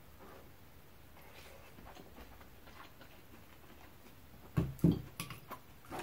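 Faint close-miked chewing of a mouthful of curry and rice, with soft wet mouth clicks. Near the end come a few sharp knocks and clicks, the first two loudest with a low thud.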